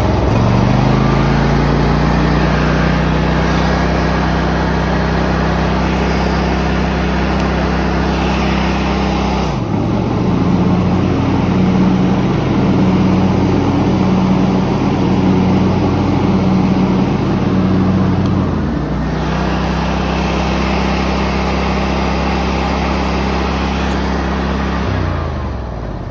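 Toro TimeCutter zero-turn mower's V-twin engine running, speeding up in the first second, changing speed twice, then winding down and stopping at the very end. It runs with the blade (PTO) switch on, which should stop it from starting, and the owner calls this bad.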